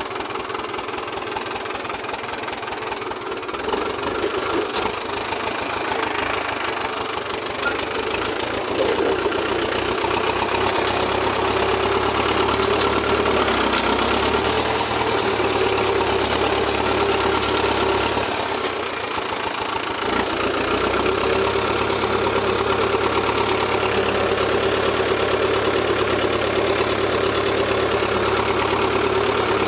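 Valmet 86 ID tractor's diesel engine running steadily with a knocking clatter while the tractor pushes through brush with its front blade. Its note drops briefly about two-thirds of the way through, then picks up again.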